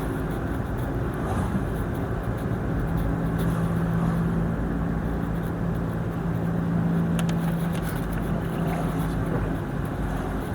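A motor vehicle running steadily: a low engine hum over an even rush of road and wind noise.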